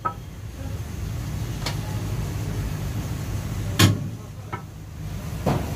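A few sharp knocks and clinks as lamb is trimmed by hand with a knife and pieces land against steel bowls; the loudest knock comes a little under four seconds in. A steady low hum runs underneath.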